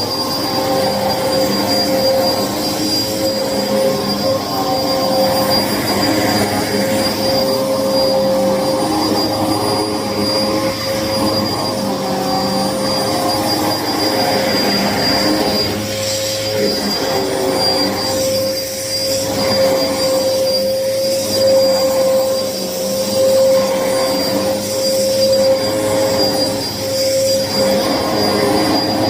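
Hoover vacuum cleaner running continuously, a steady motor whine with a strong fixed tone; in the second half the sound swells and dips every second or two. The owner says the vacuum is clogged and she has not unclogged it.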